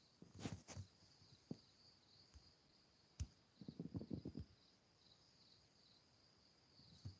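Near silence: faint background hiss with a few soft clicks and a brief patter of faint taps about four seconds in.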